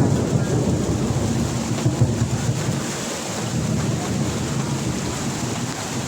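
Heavy monsoon rain pouring down, a steady rushing noise with a low rumble underneath.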